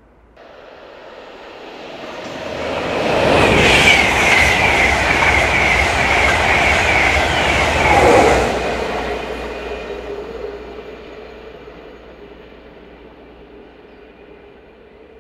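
LNER InterCity 225 electric train (class 91 locomotive and Mk4 coaches) passing at speed: the rush of wheels on rail builds up, stays loud for about five seconds with a high steady ringing over it, a whine drops in pitch about eight seconds in, then the sound fades away as the train recedes.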